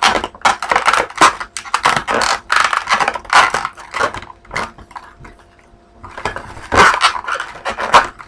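Latex twisting balloons being squeezed and rubbed together in the hands, a dense run of crackling rubs and squeaks with a quieter lull a little past halfway.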